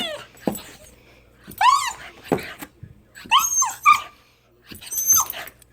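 Dog giving short, high-pitched whining yips in excitement, about five cries each under half a second, with a few sharp knocks in between.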